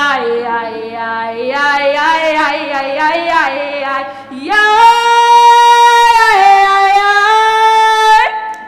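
A woman singing a show tune in a strong belting voice. A run of wavering notes leads into one long held note about four and a half seconds in, which steps down in pitch partway through and then stops just before the end.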